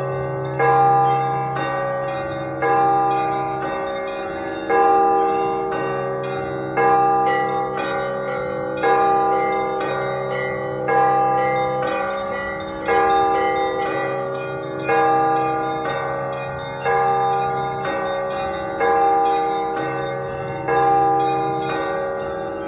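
Russian Orthodox church bells ringing in a full peal: a loud stroke about every two seconds under quick, repeating strikes of several smaller, higher bells, all ringing on together.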